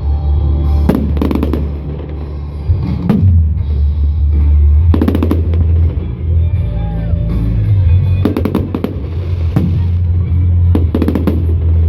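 Fireworks shells bursting in clusters of sharp bangs every second or two over loud music with a heavy, steady bass.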